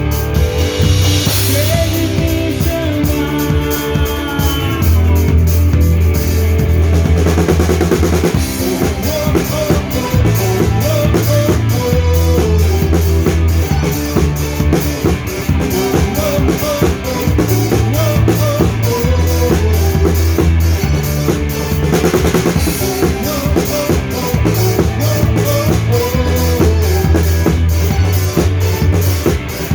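Live band playing an instrumental passage of a worship song, the drum kit keeping a steady beat on bass drum, snare and cymbals under bass and melodic instruments.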